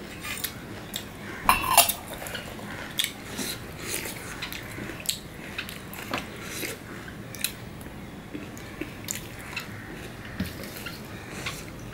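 Hand mixing and squeezing shredded pomelo pulp in a stainless steel plate: soft wet squishing with irregular clinks and taps on the metal plate, loudest about a second and a half in.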